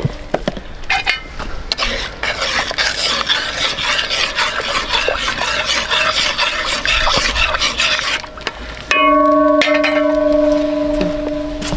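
Crackling, rustling sizzle of food being stirred in a cooking pan for about six seconds. About nine seconds in, a steady ringing tone with overtones comes in and holds for about two seconds.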